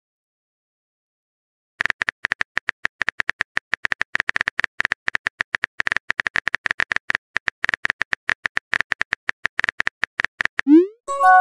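Phone keyboard typing sound effect: rapid, regular clicks starting about two seconds in and lasting about nine seconds. Near the end a short rising swoop and a brief tone as the message is sent.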